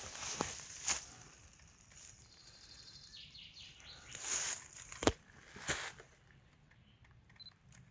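Footsteps crunching through dry fallen leaves on a stony forest floor. There are a few separate steps, the loudest about five seconds in, with quiet outdoor background between them.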